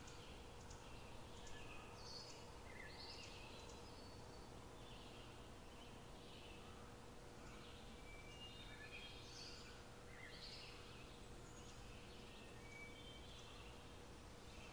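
Near silence: faint room tone with a steady low hum and scattered faint high chirps.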